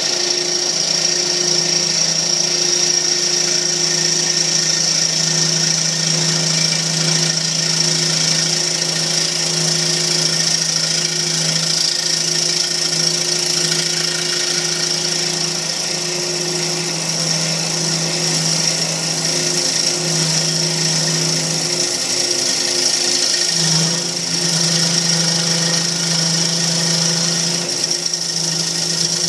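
Wood lathe running steadily with a steady hum and hiss as a mahogany bowl is worked on it. The hum sags briefly about 22 seconds in, then picks back up.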